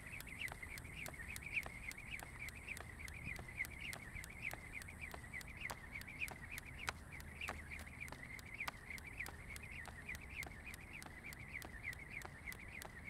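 Rogue SR1S bearing speed rope spinning fast during continuous skipping, ticking lightly on the concrete each time it strikes the ground, with a high wavering whir that pulses in time with the turns.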